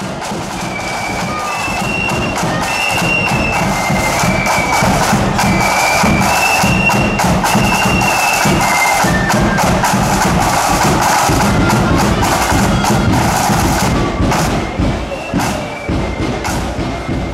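Marching flute band playing: a shrill, high flute melody over side drums and a booming bass drum. The music swells in over the first couple of seconds and becomes quieter and more broken near the end.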